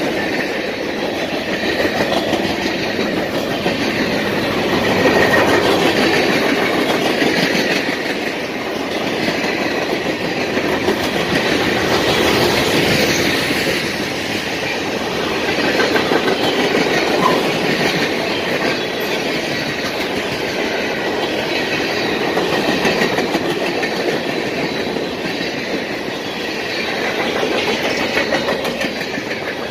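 Cars of a CSX mixed freight train rolling past: loud, steady noise of steel wheels running on the rails, swelling and easing slightly as the cars go by.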